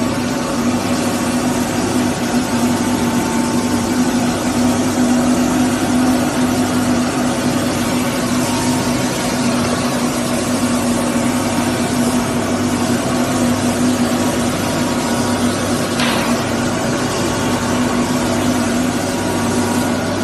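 Single-sheet veneer sanding machine running steadily as sheets of wood veneer feed through it: a constant hum over an even rushing noise. There is one short click about sixteen seconds in.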